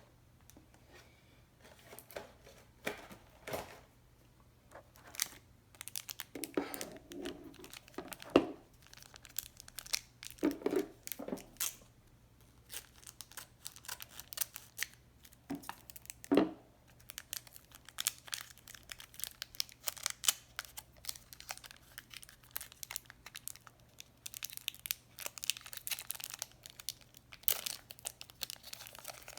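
Packaging being torn open and crumpled by hand: irregular crinkling and tearing, with a few louder rips.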